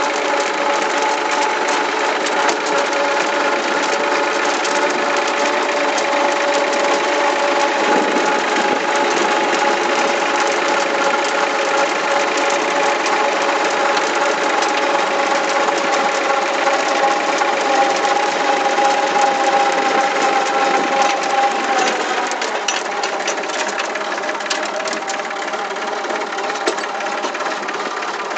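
Old farm tractor's engine running steadily while driving, heard from inside the cab. The engine note softens a little about three quarters of the way through.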